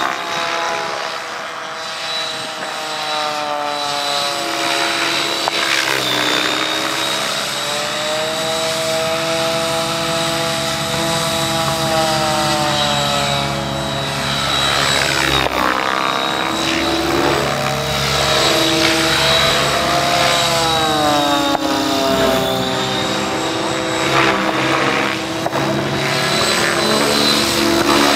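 Align T-Rex 700 DFC electric RC helicopter flying aerobatics: rotor noise and a steady high motor whine, with tones sliding up and down as it manoeuvres. About halfway through it makes a sweeping pass close by.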